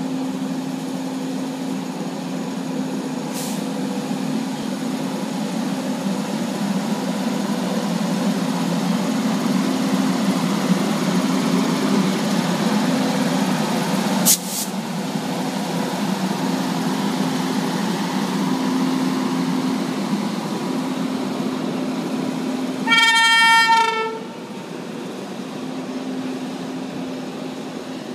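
WAG-9 electric locomotive and a rake of empty open coal wagons passing close by: a steady rumble of wheels on rail with a constant electrical hum. Near the end a train horn sounds loudly for about a second.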